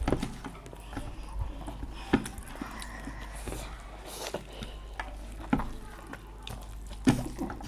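Sounds of eating from plates: scattered small clicks and scrapes, a few sharper knocks, over a steady low hum.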